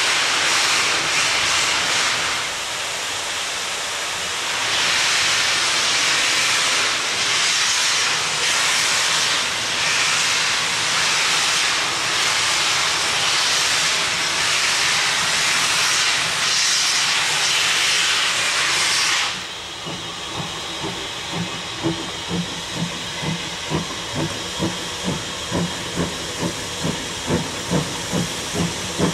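Steam locomotive letting off steam in a loud, steady hiss that cuts off suddenly about two-thirds of the way in. It is followed by the slow exhaust beats of the engine pulling away, about two a second, getting louder and slightly quicker.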